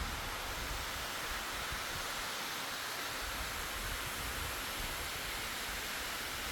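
Steady rush of a mountain waterfall, an even hiss of falling water, with gusty low wind rumble on the microphone.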